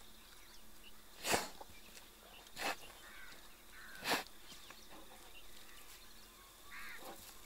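Sloth bear feeding on termites through its snout: three short, sharp puffs of blowing and sucking, about a second and a half apart, then a fainter one near the end.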